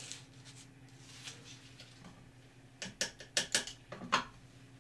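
A quick run of about eight small sharp clicks and taps about three seconds in, over a faint steady low hum.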